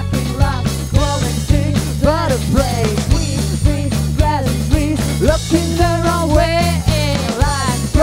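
A rock band playing live: a woman singing with wavering, sustained notes over electric guitar, bass guitar and a drum kit keeping a steady beat.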